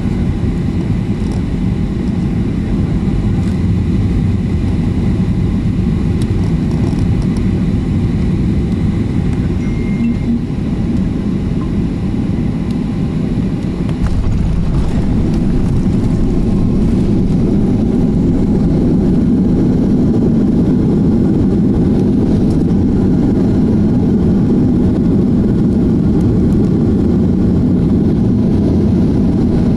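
Steady low rumble of a jet airliner's engines and airflow heard from inside the passenger cabin on final approach. About halfway through it steps up to a louder, heavier rumble as the aircraft is rolling out on the runway.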